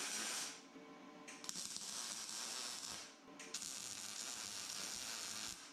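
Wire-feed welder arc crackling as a steel bracket is welded, in three runs separated by two short pauses.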